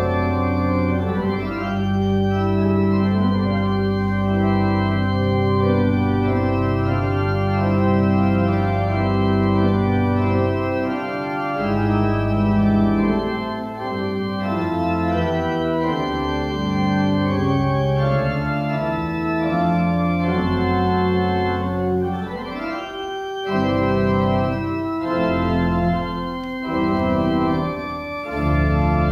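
Church organ playing slow, sustained chords over long-held low bass notes, the chords changing every few seconds.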